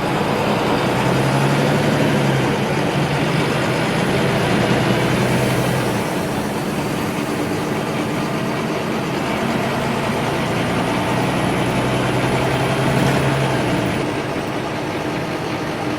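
City bus engine and road noise heard from inside the cabin. The engine pulls harder twice, in the first few seconds and again from about ten seconds in, with a faint high whine that rises and falls along with it.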